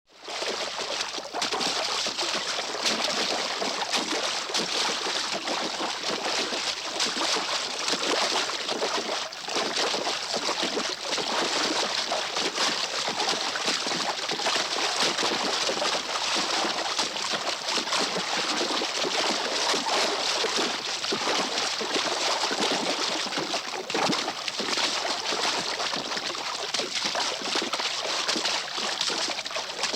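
Horses splashing through water as they wade out of it: continuous sloshing and splashing, with many quick splashes throughout.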